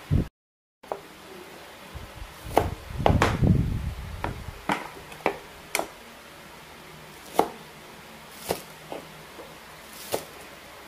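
Kitchen knife chopping long beans on a wooden cutting board: separate sharp knocks of the blade striking the board, irregular and roughly one every half second to second, bunched more closely a few seconds in.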